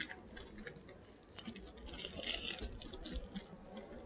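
Faint crinkling and rustling of plastic shrink wrap as a cardboard box is pulled out of it, with a few light clicks; loudest about two seconds in.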